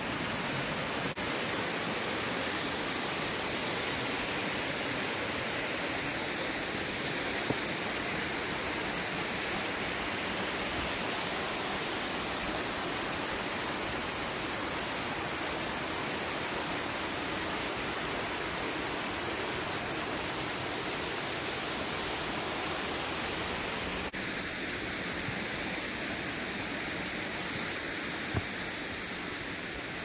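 Steady rush of water cascading over rock ledges in a small waterfall. About 24 seconds in, the rush abruptly thins out and sounds lighter.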